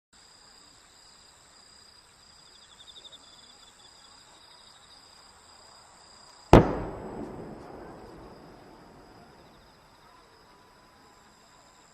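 A single large firework shell bursting: one sharp, loud bang about six and a half seconds in, followed by a long rolling echo that dies away over a few seconds.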